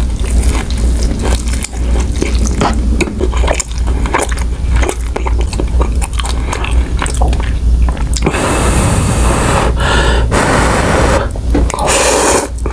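Close-miked chewing with many small wet clicks, then long loud slurps of instant ramen noodles about eight seconds in, again a second or two later, and once more near the end.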